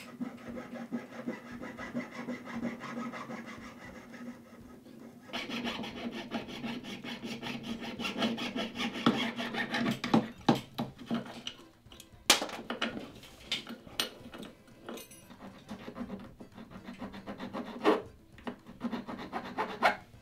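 Jeweler's saw cutting through a small metal piece on a wooden bench pin, with quick back-and-forth strokes. In the second half, a hand file rasps against the metal in slower, separate strokes.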